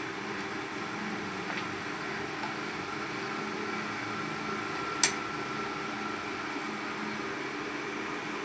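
Steady mechanical hum with one sharp, short click about five seconds in, typical of a screwdriver or tool striking metal while an amplifier chassis is being opened.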